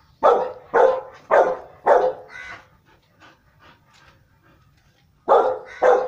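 Rottweiler barking: a quick run of five barks, a pause of about two and a half seconds, then two more barks near the end.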